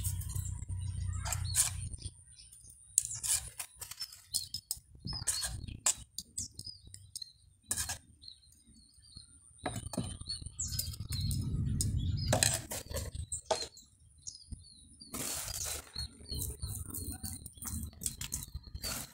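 Hands working grit and small rocks into a bonsai pot: scattered clicks and scrapes of stone on stone, with a longer stretch of grainy rustle from a tin of sand or grit a little past the middle. Birds chirp faintly in the background.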